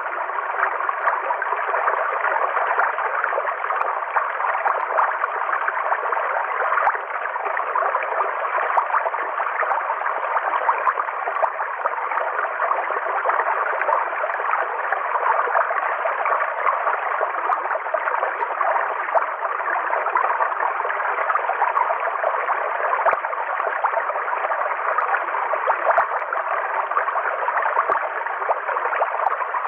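Flowing river water: a steady, even rush with no breaks or changes.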